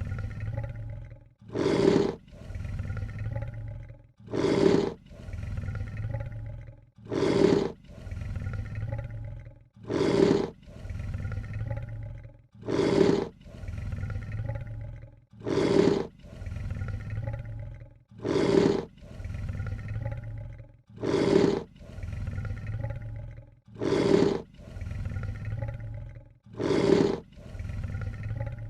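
Lion hissing: a short, loud hiss-snarl followed by a quieter, lower rumble, repeated the same way about every two and a half to three seconds, like a looped sample.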